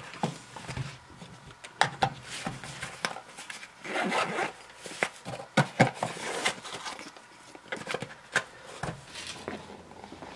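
Handling noise of a handheld moisture meter being tucked into its soft carrying case and the case closed: irregular scuffs and small clicks.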